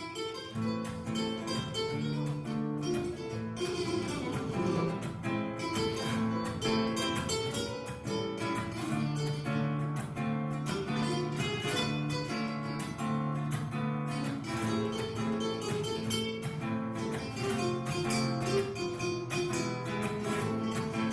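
Background music: acoustic guitar playing a lively plucked and strummed melody.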